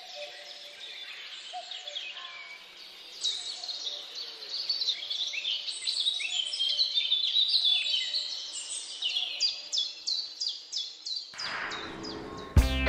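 Many birds chirping and calling over one another, a dense chorus of short high chirps and quick downward-sweeping calls that grows busier, with a rapid run of calls, about three a second, toward the end. Just before the end, a swell of noise comes up and music with a beat cuts in.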